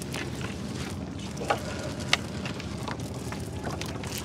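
Gill net being hauled by hand over the side of a small boat: water splashing and dripping off the mesh with scattered small ticks, and two sharp knocks about a second and a half and two seconds in, over a steady low rumble.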